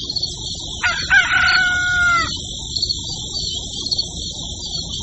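A rooster crowing once, a single call held for about a second and a half that starts about a second in, over a steady high buzz.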